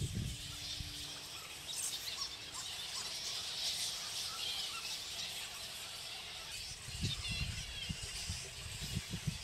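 A roosting colony of giant fruit bats (flying foxes), a continual chorus of high squeals and chattering calls. Low rumbles come in near the end.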